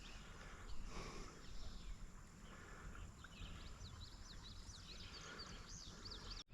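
Low outdoor background rumble, with a bird singing a rapid run of high, quick chirps from about halfway through. The sound cuts out briefly just before the end.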